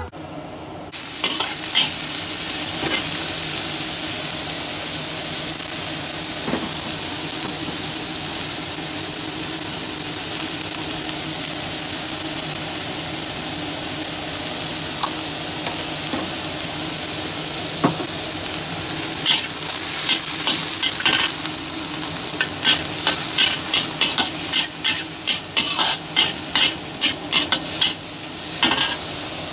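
Sliced bitter gourd and garlic sizzling in oil in a wok while a spatula stirs and scrapes. In the second half the spatula strokes come quick and repeated as the vegetables are tossed.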